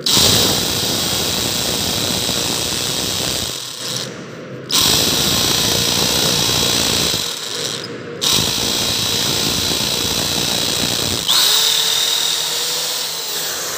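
KYK 750 W hammer drill boring into poured concrete with a masonry bit, running loud in three long stretches with brief let-ups about four and eight seconds in. Near the end the sound changes and the motor's pitch rises slightly.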